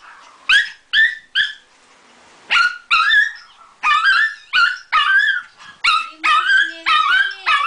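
A Maltese giving a rapid series of short, high-pitched yipping barks, with a brief pause about a second in before they start again.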